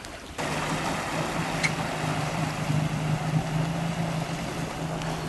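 Personal watercraft (jet ski) engine running steadily at low speed as the craft pulls away across the water, a constant low hum over a wash of water and air noise.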